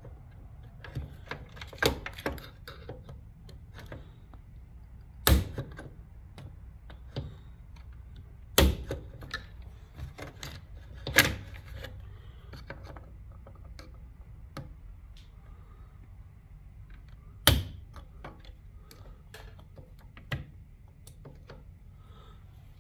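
Pliers clicking, tapping and snapping against the spring clip and metal parts of a garage door opener's worm-gear assembly, improvising in place of a clip remover. The clicks are irregular and scattered, with a few louder snaps, over a low steady hum.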